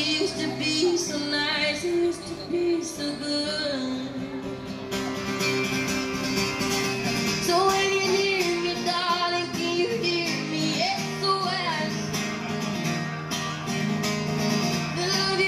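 A woman singing while accompanying herself on an acoustic guitar.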